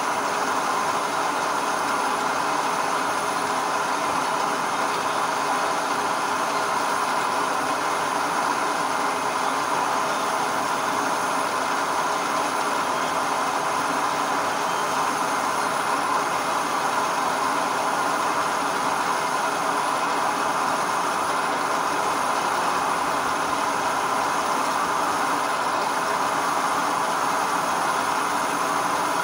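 Manual centre lathe running steadily, its motor and gears giving a constant mechanical whine, while a facing tool cuts across the end of a spinning metal workpiece.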